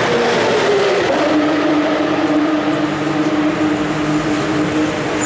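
Aston Martin Vantage V8 race car engine coming down the pit lane: its note drops about a second in as it slows, then holds a steady pitch as the car rolls in at constant speed toward its pit box.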